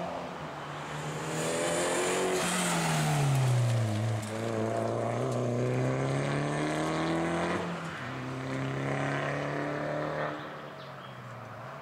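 Rally car engine at high revs on a stage: the revs fall as it slows, then climb hard, dip at a gear change about eight seconds in and climb again, before the sound falls away as the car drives off.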